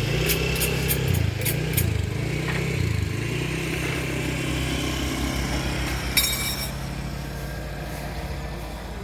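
Heavy diesel engine revving, its pitch rising and falling several times in the first three seconds and then running steady. There are several clicks in the first two seconds and a short hiss about six seconds in.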